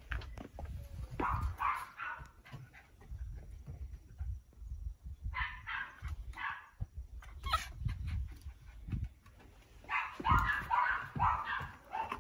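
A dog at excited rough play, giving short, high yips and barks in three bursts: a few about a second in, four quick ones around the middle, and the loudest run near the end.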